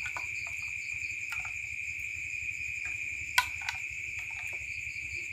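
A steady high-pitched insect chorus, like crickets, with a few light plastic clicks and taps from the toy fishing rod and hook. The sharpest click comes about three and a half seconds in.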